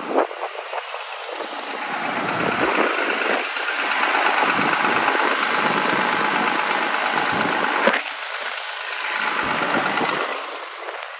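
Hyundai R230L excavator's diesel engine running, getting louder about two seconds in, holding, then easing off near the end.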